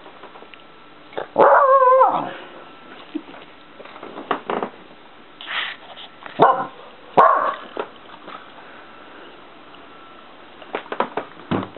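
Small shaggy dog barking: one long wavering bark about a second in, then two short barks around six and seven seconds in, with a run of quick taps near the end.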